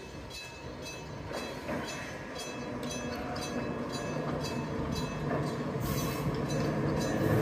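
Enoden electric train approaching around a tight street curve, its running growing steadily louder. A warning bell rings about twice a second throughout.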